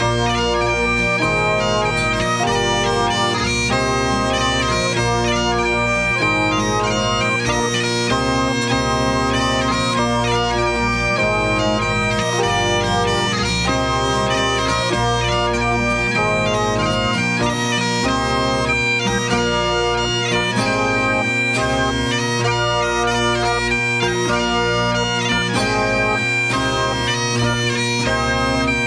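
Recorded folk band tune led by bagpipes playing a quick melody over a steady drone, with accordion and a steady low bass underneath.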